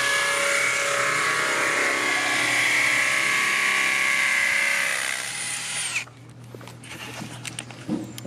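Cordless drill running steadily at speed with a whine, then winding down and stopping about six seconds in. A few quieter clicks and knocks follow.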